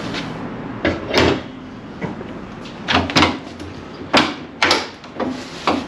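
Stock hood scoop of a Honda Civic Type R being worked loose from the hood by hand: a string of irregular knocks and clicks as it is pushed, pulled and its retainers give.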